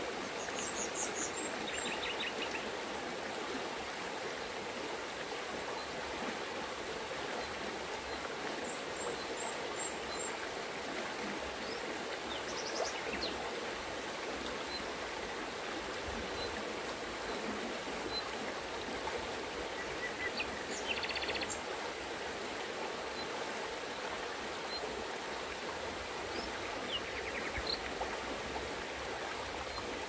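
Shallow mountain river running fast over stones, a steady rushing and babbling of water. A few short, high bird chirps and trills come through now and then.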